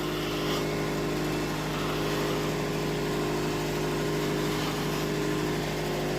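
Wood-Mizer LT70 sawmill running steadily as its band blade saws maple boards, a constant mechanical drone that swells slightly at the start and then holds even.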